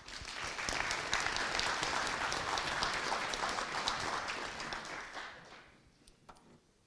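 Audience applause, a dense patter of many hands clapping, that dies away about five to six seconds in.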